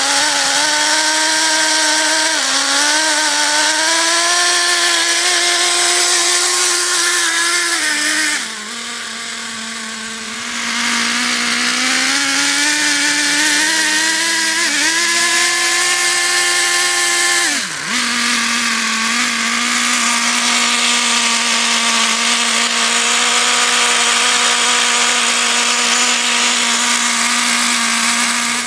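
Traxxas 3.3 two-stroke nitro engine spinning a propeller, a high-pitched buzz that revs up and down under throttle. It drops back to idle about a third of the way in, revs again, dips sharply near two-thirds of the way, then idles steadily.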